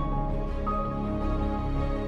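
Background music: slow held notes over a steady low bass, with a new higher note coming in about two-thirds of a second in.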